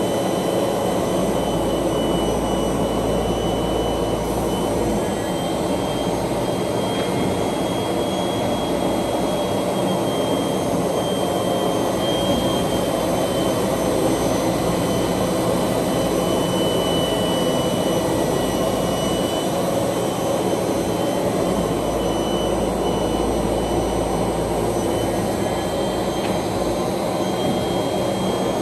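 MB Maschinenbau Roba Fentech brush sanding machine running steadily: a continuous mechanical drone with a thin high whine over it. A deeper low hum comes in for a few seconds near the start and again about three quarters of the way through.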